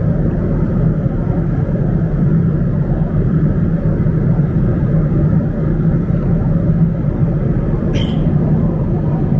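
Steady cabin noise of an airliner at cruise: an even rush of air and engine noise with a low steady hum underneath, and one brief click about eight seconds in.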